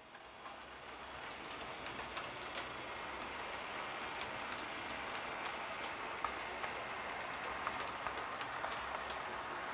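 Model train, a red class 220 diesel locomotive hauling coaches, rolling past on the track: a steady rattling rumble with many small clicks from the wheels, growing louder over the first couple of seconds as it approaches.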